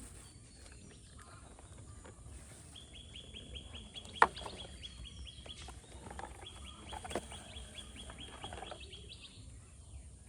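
A bird giving two long, rapid trills of about three seconds each, with two sharp clicks, the first about four seconds in being the loudest.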